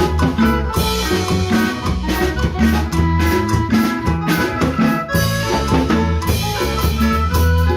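A band playing music with a drum kit and a steady beat over a strong bass line, with held melodic notes on top.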